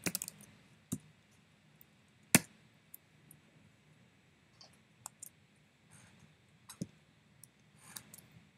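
Scattered clicks from a computer keyboard and mouse. There are a few quick keystrokes at the start, one sharper key press a little over two seconds in, then sparse single clicks.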